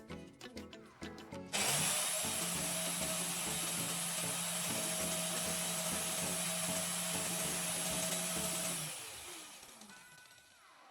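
A small electric power tool switches on abruptly about a second and a half in and runs steadily, a loud hissing whir over a steady hum, then dies away over the last couple of seconds. Background music plays before it starts.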